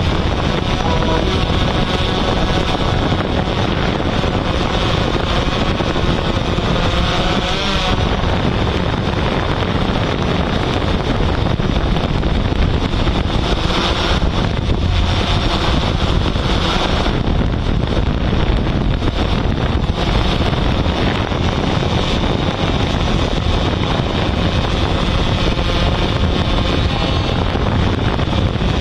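Yuneec Typhoon H hexacopter's electric motors and propellers running steadily in flight, with wind noise on its onboard microphone.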